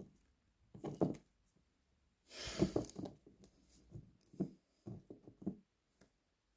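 Quiet handling noises at a workbench: a few light knocks and clicks of pliers and small plastic model parts being handled, with a brief rustle about two and a half seconds in.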